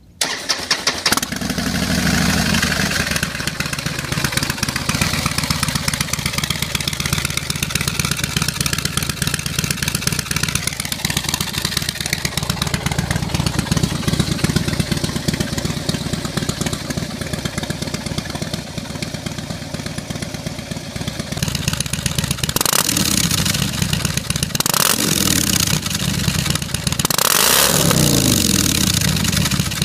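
Harley-Davidson CVO Softail Deluxe's Twin Cam 110 V-twin firing up at once and settling into a steady idle. From about two-thirds of the way through, the throttle is blipped several times, each rev rising and falling.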